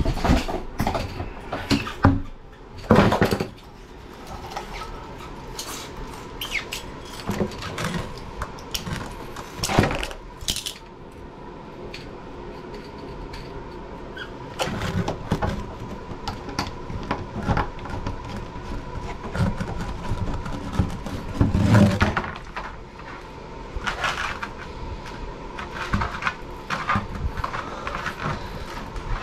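Irregular knocks, clicks and clatter of hands handling objects and materials, with a couple of louder thumps, about three seconds in and near twenty-two seconds. A faint steady tone runs behind.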